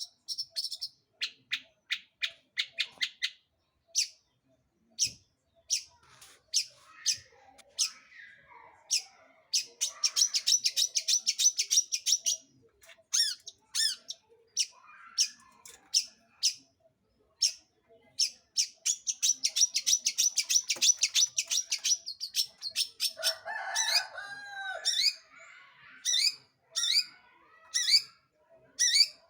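Long-tailed shrike (cendet) singing: strings of sharp, high chips broken by two long, rapid, harsh trills, with lower, varied warbled phrases near the end.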